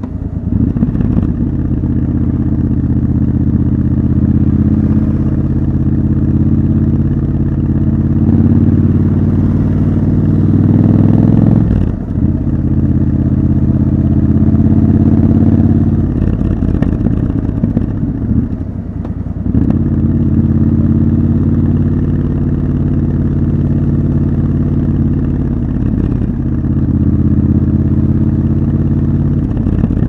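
Triumph Scrambler 1200 XC's 1200 cc parallel-twin engine running under way in city traffic. The note climbs slowly, breaks off sharply about twelve seconds in, dips again a few seconds later, then picks up and holds steady.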